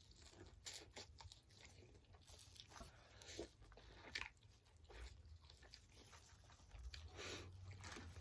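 Faint close-up eating sounds: a person biting and chewing food, with irregular soft crunches and wet mouth clicks.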